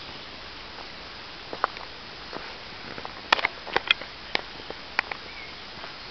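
Footsteps through dry leaf litter on a woodland path: irregular sharp crackles and twig snaps, thickest about halfway through, over a steady hiss.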